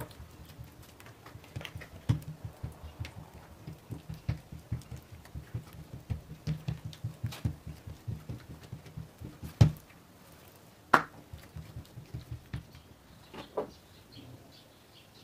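Dough being worked by hand in a bowl: a run of soft, quick low thumps lasting about nine seconds, followed by a few sharper knocks.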